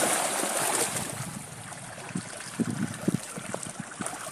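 Milkfish thrashing at the surface of a fishpond: a rush of water noise at first, then a scatter of short splashes as the fish break the water.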